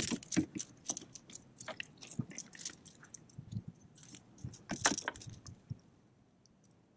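Close handling noise as a speckled trout is unhooked by hand from a chartreuse soft-plastic lure: a run of small clicks, light metallic jingles and rustles of cloth and line, with a louder cluster of clicks about five seconds in.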